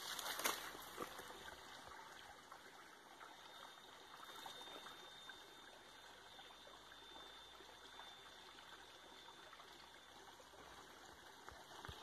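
Faint trickle of water running down a bank into a small lake, a soft steady flow.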